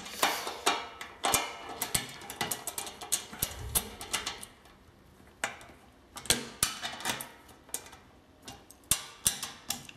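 Irregular metal clicks and taps as bolts and nuts are fitted and tightened to mount an electric motor on a stainless-steel lid plate.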